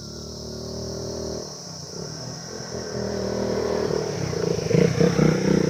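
Motorcycle engine running, growing louder over the last few seconds into a rough, throbbing note.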